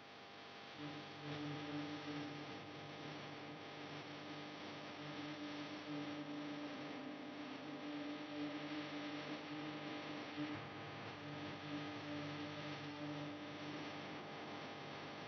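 A steady low electrical hum over a soft hiss, setting in about a second in.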